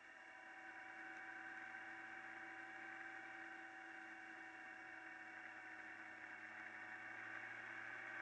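Faint, steady hum and whine of a motorcycle riding along at cruising speed, a little louder after the first second.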